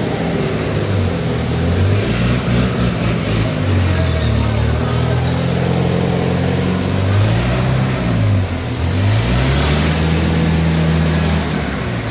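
Diesel engine of a Komatsu PC200 hydraulic excavator running, its pitch sagging and recovering several times as the load comes on and off, most deeply a little after the middle.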